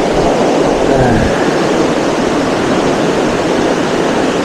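Steady rushing of stream water, loud and close on the microphone.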